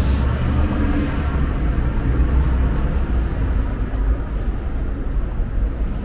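City street ambience dominated by a steady low engine rumble, with a few faint clicks over it.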